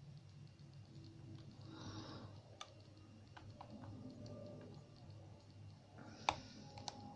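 Faint small clicks and ticks of a metal lock pick and tension wrench working the pins inside a pin-tumbler lock, with a sharper click about six seconds in.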